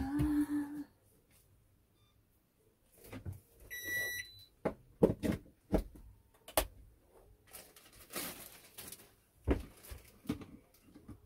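A short electronic beep about four seconds in, then scattered plastic clicks and knocks as a small coffee machine and its wrapping are handled and set up on the counter. A brief steady hum sounds in the first second.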